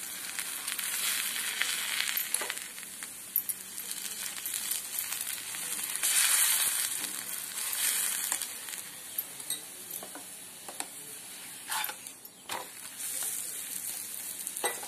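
Oil sizzling under a paneer paratha frying in a nonstick pan as a steel spoon spreads oil over its surface. The sizzle swells and eases, and there are a few light clicks later on.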